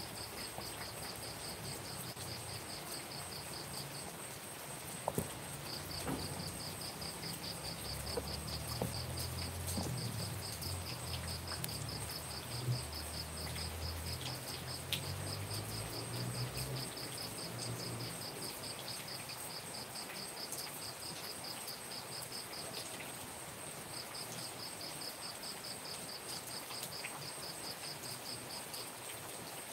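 Night insects calling over steady rain: a constant high buzz and a rapid, pulsing trill that stops and starts again a few times, against the even hiss of falling rain. A couple of small knocks stand out about five seconds in and again around thirteen seconds.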